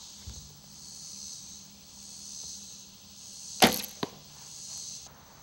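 A traditional bow is shot: one loud, sharp snap of the string about three and a half seconds in. A smaller knock follows about half a second later as the arrow strikes the 3D deer target.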